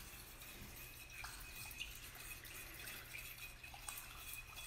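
A spoon stirring a thin, watery alcohol hand-sanitizer mixture in a glass Pyrex measuring cup: faint liquid swishing with a few light clicks of the spoon against the glass.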